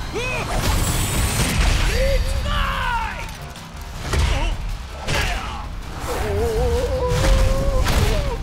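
Cartoon battle sound effects: a string of heavy punches, crashes and booms over dramatic score music, ending with ice shattering.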